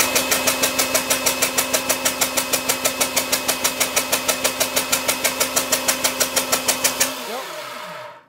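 An external motorcycle starter spins a KTM LC4 660 single-cylinder engine over for an ignition-timing check. It makes a steady whine with a regular pulse about six times a second. About seven seconds in it stops, and the whine falls away.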